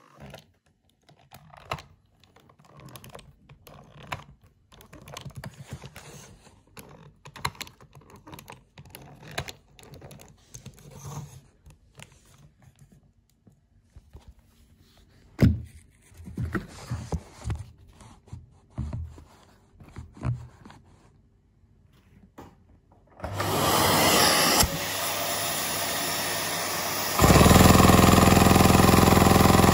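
Scattered clicks and knocks of LEGO parts being handled, then a vacuum cleaner switched on near the end with a loud steady rush that steps up louder and fuller a few seconds later. The vacuum cleaner supplies the suction for a LEGO vacuum engine.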